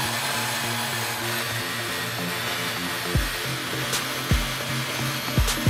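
Drill spinning a sisal buffing wheel against a brass knob charged with green polishing compound: a steady whirring hiss. A few dull thumps come in the second half.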